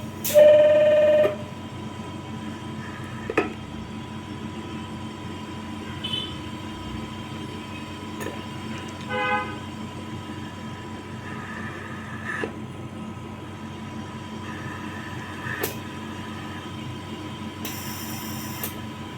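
Elisa 600 ventilator running its system self-test with the Y-connector blocked: a loud beep lasting about a second just after the start, over a steady machine hum. Fainter short beeps and single clicks follow now and then, with a brief hiss near the end.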